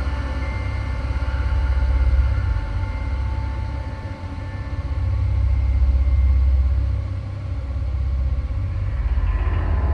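Deep, continuous rumbling drone that swells and eases every few seconds, with a few thin steady tones held above it: a dark ambient horror soundscape.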